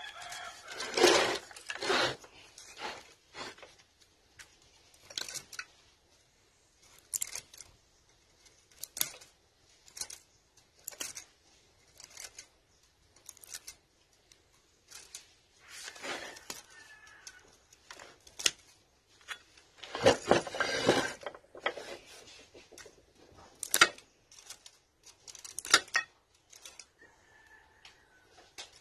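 Irregular snips, clicks and scrapes of a hand tool cutting and prying old copper winding wire out of the steel stator of a 3 hp swimming pool pump motor, with longer, louder scraping about a second in and again about two-thirds through.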